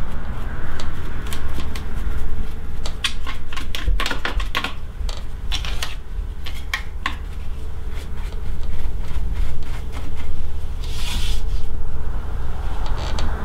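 A small brush scrubbing and flicking over the metal parts underneath an industrial sewing machine, clearing lint: a run of light clicks and scratches, busiest from about three to seven seconds in, with a short brushing swish near eleven seconds, over a steady low hum.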